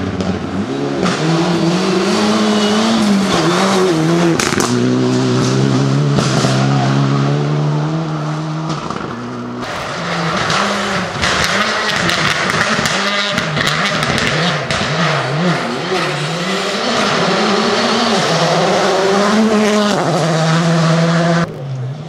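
Rally car engines revving hard, one car after another, the pitch climbing and dropping through gear changes under heavy throttle over loose ground. The sound switches abruptly from one car to the next a few times.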